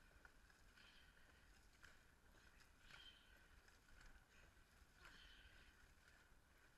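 Near silence, with faint splashes of dragon boat paddles dipping into the water, about one stroke a second.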